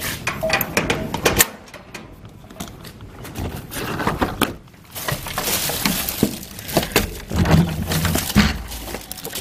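Metal clinks and clanks from the latch and padlock of a sheet-metal gate being worked by hand, a quick run of sharp knocks in the first second or so, followed later by a few seconds of denser rattling clatter.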